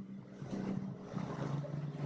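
Background music: soft, held low notes in a quieter passage.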